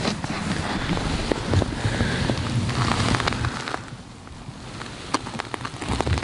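Footsteps crunching in snow, with wind buffeting the microphone, for the first few seconds. Then it goes quieter, with a few faint clicks and rustles as the camera monitor is handled.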